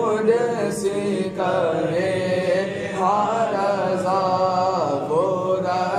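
A man sings an Urdu salaam, a devotional chant in praise of the Prophet, unaccompanied into a handheld microphone. He draws out long, wavering, melismatic notes, with short breaks for breath.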